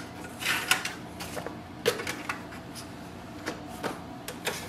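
Paper being loaded into a laser printer's front paper tray: a stack of sheets rustling as it slides in, with a series of light plastic clicks and knocks from the tray's paper guides.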